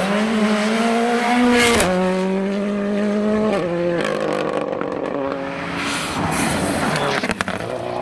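Ford Fiesta rally car driven hard on a gravel stage, the engine's revs climbing, falling sharply at an upshift with a crack about two seconds in, then climbing again. After a cut about four seconds in, another rally car's engine runs at lower revs, with sharp clicks near the end.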